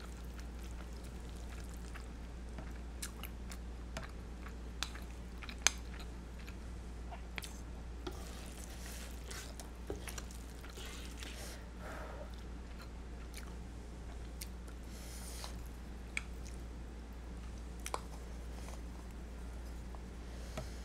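Creamy carbonara noodles being stirred and lifted with a silicone spatula in a nonstick electric pan: soft wet squishing, with scattered light clicks of the utensils against the pan and bowl, the sharpest about six seconds in. Some quiet chewing is mixed in.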